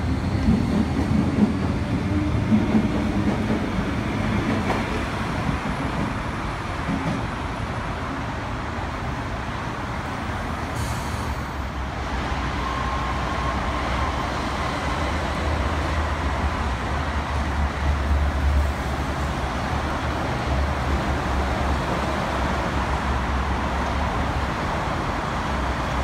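Railway station platform background noise: a steady rumble of trains and traffic, with the low rumble growing heavier a little past the middle.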